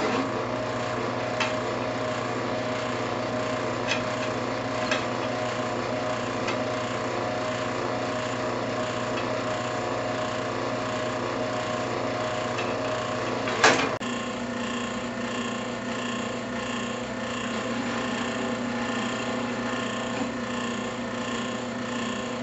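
Floor drill press motor running steadily while holes are drilled in a steel sprocket blank, with a few light clicks and one sharp metallic knock about 14 seconds in.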